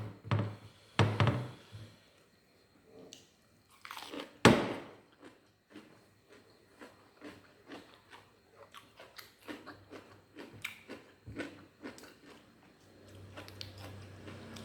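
Close-up eating sounds: loud crunchy bites of fried tempeh, tofu or raw vegetables, with the biggest bite about four and a half seconds in, followed by steady chewing with small wet clicks. A low steady hum comes in near the end.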